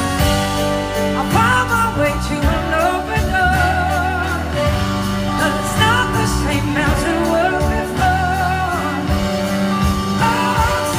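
Live blues-rock band playing: electric guitars, keyboards and drums under a lead vocal, with wavering sustained melody notes held over the band. Heard from among the audience.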